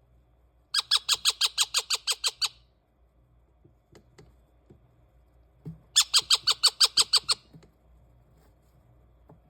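Indian ringneck parakeet chicks calling: two bursts of about a dozen sharp, rapid calls each, roughly seven a second, the second burst coming about five seconds after the first.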